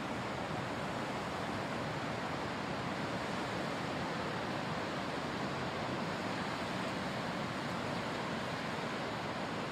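Steady rush of ocean surf breaking on an offshore reef, an even wash of sound with no single wave standing out.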